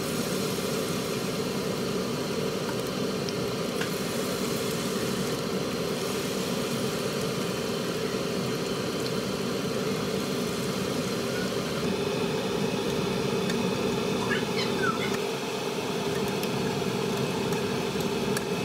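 Bakwan, Indonesian vegetable fritters, frying in a wok of hot oil, with a steady sizzle and bubbling as batter goes in and cooks. A steady hum runs underneath.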